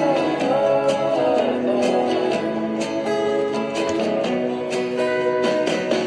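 Background music: a pop song with guitar, playing between sung lines.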